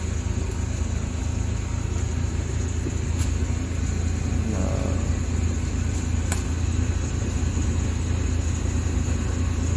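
Suzuki Carry DA63T's three-cylinder engine idling steadily at about 1,100 rpm, heard from inside the cab, with a few faint clicks.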